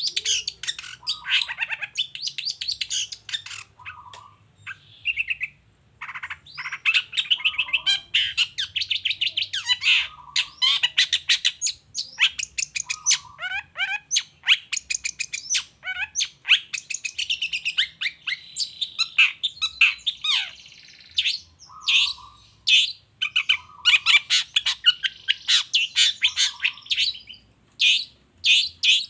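Long-tailed shrike (cendet) singing loud and full: long runs of rapid, sharp repeated notes and chatters, broken by brief pauses.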